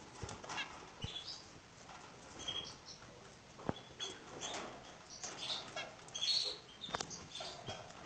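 Canaries giving short, high chirping calls at irregular intervals, with a few sharp clicks or taps among them.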